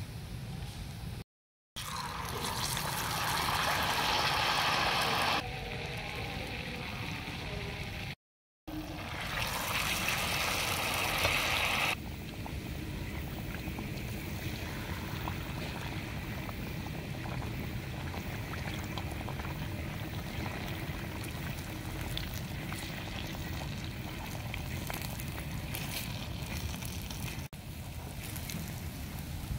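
Battered banana cakes deep-frying in hot oil, a steady sizzle. In the first half there are two louder, brighter stretches of sizzling, each starting right after a brief cut to silence.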